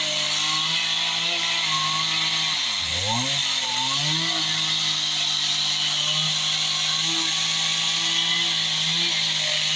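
Two-stroke chainsaw running steadily. About three seconds in, the engine speed drops sharply and picks back up.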